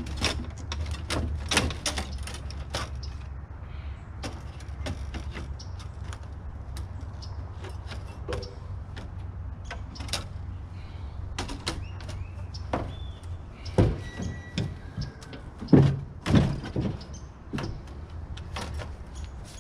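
Large hand cutters clicking and knocking against the copper tubing of an air-conditioner coil as they are wrestled into position, with two louder snaps about two seconds apart past the middle as the tubing is cut. A steady low hum runs underneath.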